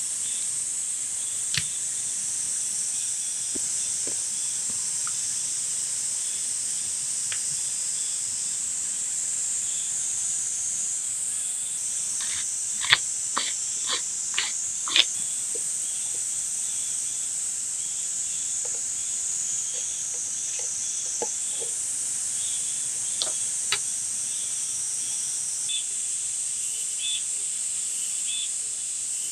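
Steady high-pitched chorus of insects such as crickets or cicadas. A handful of sharp clicks and taps come about halfway through, with a few more scattered later.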